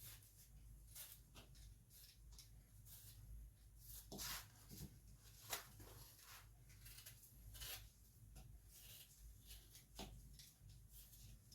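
Faint, irregular scraping and soft clicks of a blade working through fresh pears, with a few sharper ticks about four, five and a half and ten seconds in.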